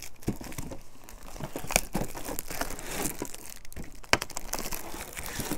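Clear plastic shrink-wrap crinkling and tearing as it is peeled off a collector's tin by hand, an irregular crackle with a couple of sharper snaps, about two and four seconds in.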